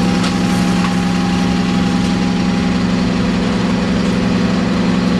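Diesel double-decker bus idling close by: a loud, steady engine drone.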